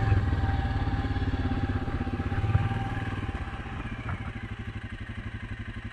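Suzuki King Quad 750 ATV's single-cylinder engine running, its firing pulses slowing and the sound dropping in level from about halfway through as it comes off the throttle.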